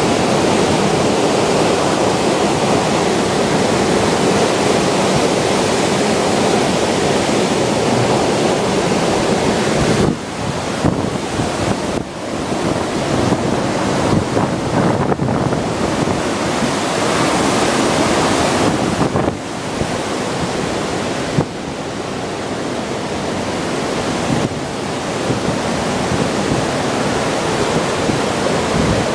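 Hurricane wind blowing hard and buffeting the microphone, a loud steady rush that eases and swells again several times after about ten seconds.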